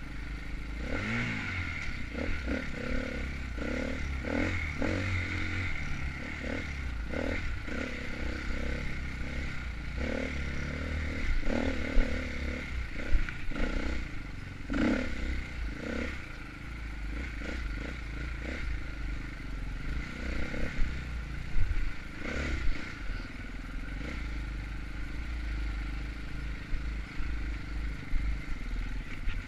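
Off-road dirt bike engine running and revving up and down on a trail ride, with clattering and scraping from the bike over rough ground. There are several sharp knocks about halfway through and again about two-thirds through.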